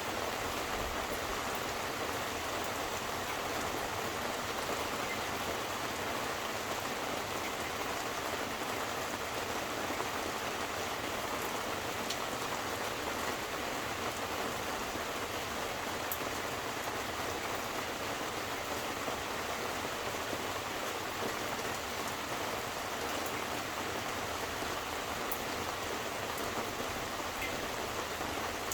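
Steady rain falling and pattering on surfaces, an even wash of sound with a few sharper drop ticks now and then.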